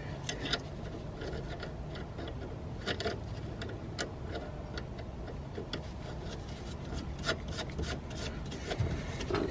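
Light irregular metallic clicks and rubbing as a steel nut is spun by hand onto the ball-joint stud of a new front anti-roll bar drop link.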